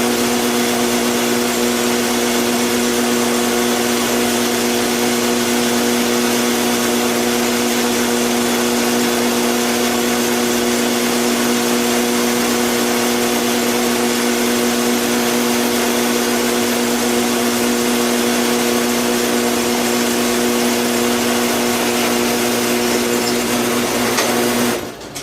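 A shop machine's motor running steadily with a constant hum and hiss, shut off suddenly near the end.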